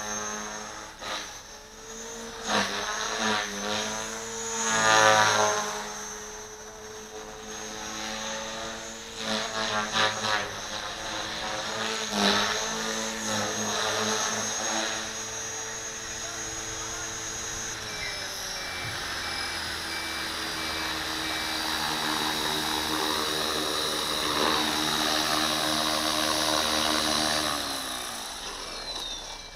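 Gartt 450L electric RC helicopter flying 3D manoeuvres: the brushless motor's whine and the rotor blades' whir rise and fall in pitch as the head is worked, with louder swells about five and twelve seconds in. From about eighteen seconds in the pitch slides steadily lower as it comes in, and near the end the rotor spools down as it lands.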